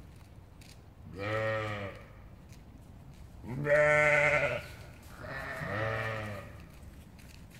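Sheep bleating: three drawn-out bleats of about a second each, the second one the loudest.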